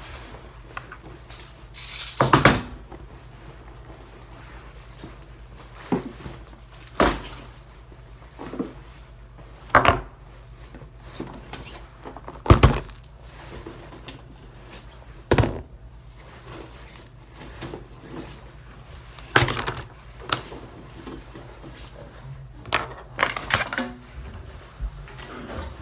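Things being taken out of a bag and set down on hard surfaces: scattered knocks, clunks and light rattles, about a dozen over the stretch, over a steady low hum.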